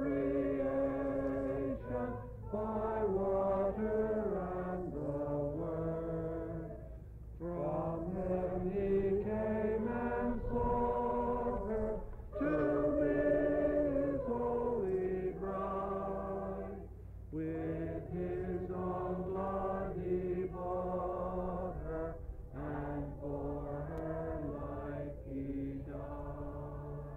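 Background music of a choir singing slow phrases of held notes, breaking every few seconds, over a steady low tone.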